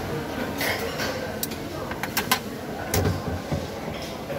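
A few sharp clinks of a metal serving utensil against a ceramic plate, clustered around the middle, over the steady background din of a restaurant dining room.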